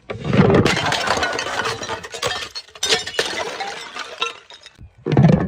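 Glass bottles smashing: a heavy crash followed by a long tinkling of shards scattering, another smash about three seconds in that fades out, and a fresh crash near the end.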